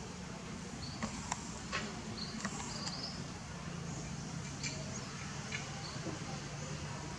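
Outdoor ambience: a steady low hum with a few faint clicks and short high chirps scattered through it.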